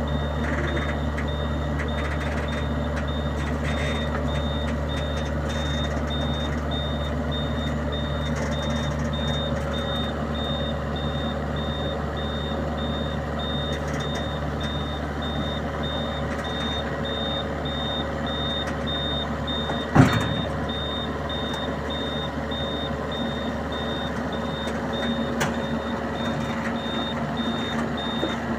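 A heavy vehicle's engine running steadily, with a high-pitched warning alarm beeping at an even, rapid rate throughout. A single sharp knock sounds about two-thirds of the way through.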